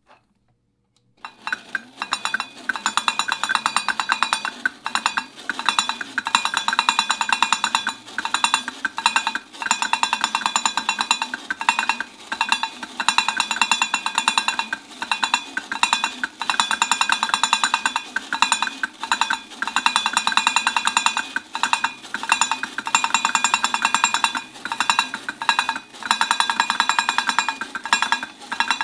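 Battery-operated toy monkey drumming rapidly on its two small metal bongos, a fast, ringing, clattering patter that starts about a second in and breaks off briefly every couple of seconds, over a faint low motor hum.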